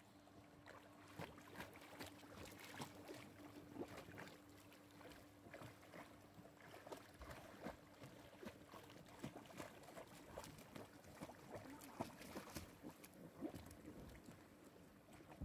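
Faint splashing and lapping of pool water, in many small irregular splashes, from a Portuguese water dog paddling as it swims. A faint steady hum sits under it for the first few seconds.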